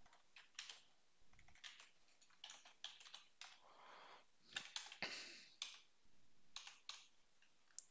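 Computer keyboard typing: irregular runs of faint keystroke clicks with short pauses between them.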